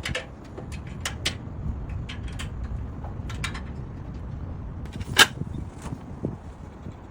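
Scattered clicks and knocks of parts being handled while a wood stove is unboxed and assembled, with one louder knock about five seconds in, over a low rumble.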